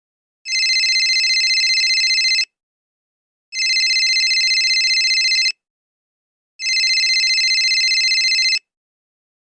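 Telephone ringing: three rings of about two seconds each with roughly a second of silence between them, each ring a high, fast-trilling tone.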